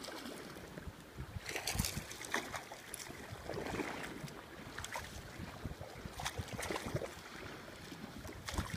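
A hooked fish splashing at the water's surface, several short splashes at irregular moments, over wind noise on the microphone.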